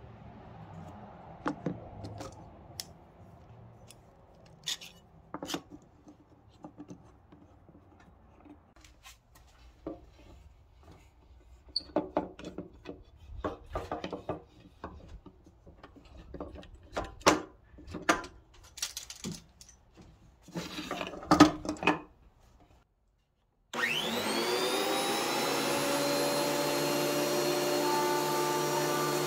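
Metal bar clamps being set and tightened on glued wooden boards: a string of sharp clicks and knocks, the loudest near the end. After a short break, a WEN benchtop thickness planer starts, its motor quickly rising in pitch and then running steadily without cutting.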